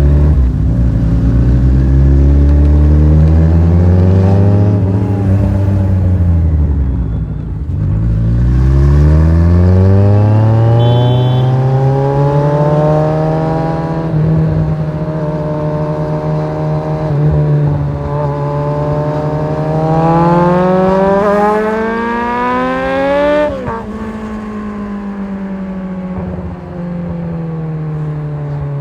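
Kawasaki Z1000's inline-four engine under way, its pitch falling and climbing several times as the bike slows and accelerates. It revs highest about three-quarters of the way through, then drops sharply as the throttle closes and settles to a steadier, lower note.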